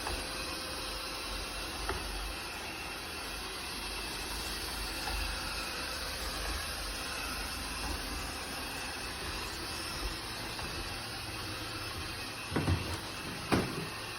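Laresar robot vacuum running with a steady whirring hiss, with two sharp knocks near the end.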